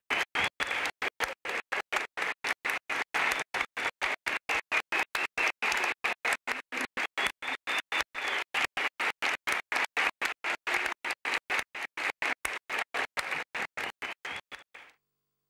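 Audience applause in a concert hall, chopped into short pieces by regular gaps of silence about three times a second, ending abruptly near the end.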